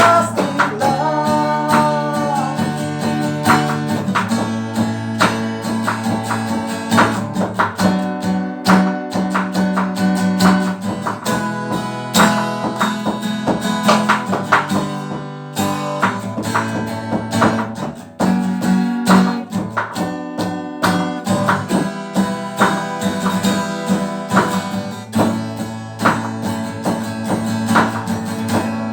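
Band playing an instrumental passage with no vocals: guitar over a drum kit, the drums hitting steadily throughout.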